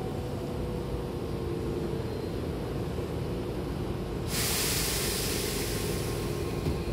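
A stationary Hankyu commuter train hums steadily with its doors shut. About four seconds in, a loud hiss of compressed air starts suddenly from the train's pneumatic system and carries on, typical of the air brakes releasing just before departure.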